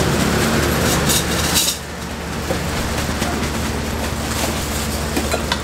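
Steady, noisy night-market background with a low hum, a little quieter from just under two seconds in, and a few faint snips of kitchen scissors cutting braised tofu.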